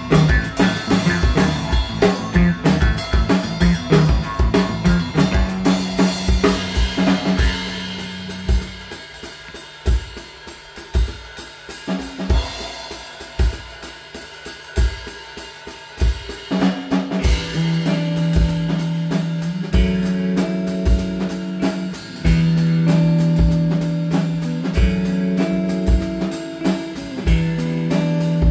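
Instrumental band music: a drum kit beat over a low, steady didgeridoo drone. About a third of the way in, the drone drops out and only sparse drum hits remain for several seconds. Then the drone and the fuller band come back.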